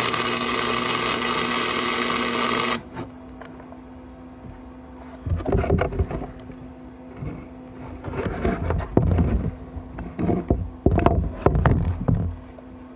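Welding arc hissing and crackling steadily for almost three seconds, then cutting off abruptly. After a pause come irregular knocks and scrapes, over a steady low hum.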